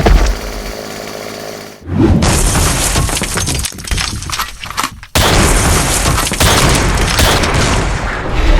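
Cartoon fight sound effects: a sharp crash at the start, then long stretches of loud smashing and breaking noise, cut off abruptly about five seconds in and starting again at once.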